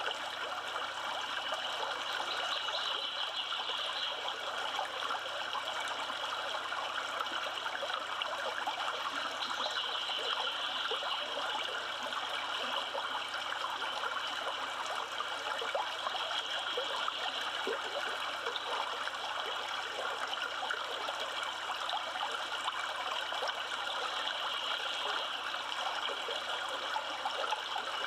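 Yellowstone River flowing: a steady rush of running water.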